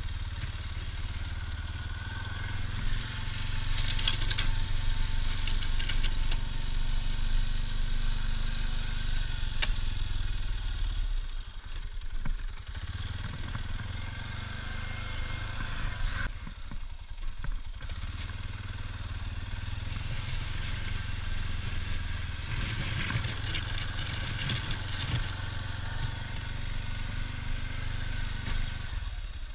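ATV engine running steadily under load from a 60-inch plow. It eases off briefly twice, about a third of the way in and again just past the middle.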